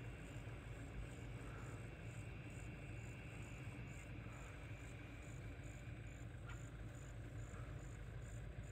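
Faint outdoor ambience: an insect chirping in a steady high-pitched pulse about twice a second, over a low rumble.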